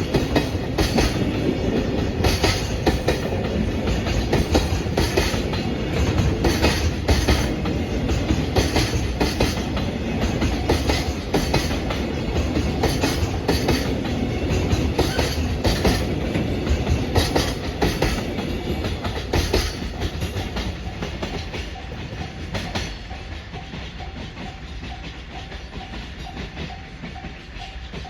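Freight train of Koki container wagons rolling past a level crossing, the wheels clacking over the rail joints in a steady rhythm under a continuous rumble. The sound fades over the last several seconds as the end of the train goes by.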